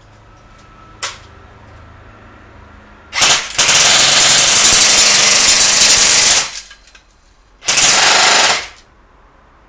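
Galaxy MP5K PDW airsoft electric gun, tuned with Systema and Deepfire internals, firing one single shot about a second in, then a long full-auto burst of about three seconds and a shorter burst of about a second near the end.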